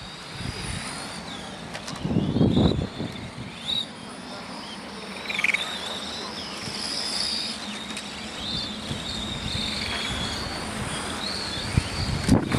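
Radio-controlled F1 racing cars lapping an asphalt track: high motor whines rising and falling in pitch as the cars accelerate and brake through the corner. There is a louder low rumble about two seconds in and a few sharp clicks near the end.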